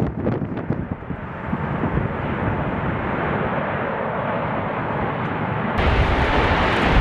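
Airbus A380 jet engine noise as the airliner rolls along the runway, a steady rumbling hiss with a few short knocks in the first second. About six seconds in it changes abruptly to a louder, deeper rumble of another A380 on a wet runway, with spray thrown up by its wheels.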